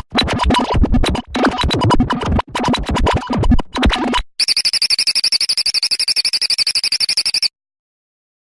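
Synthesized computer data-transfer sound effect. It begins with about four seconds of rapid, stuttering digital chatter of clicks and blips. After a brief break, a high warbling electronic tone pulses about ten times a second for around three seconds and then cuts off abruptly.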